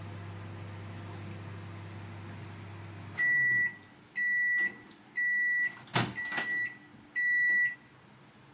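Microwave oven running with a steady low hum that stops about three seconds in, followed by five high end-of-cycle beeps about once a second. A sharp click, the loudest sound, comes just before the fourth beep.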